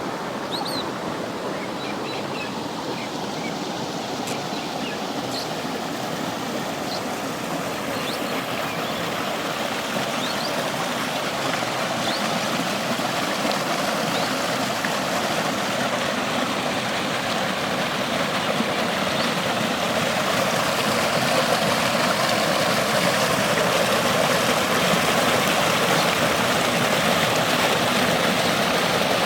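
Creek water rushing steadily, growing gradually louder. A few brief, faint high chirps sound in the first several seconds.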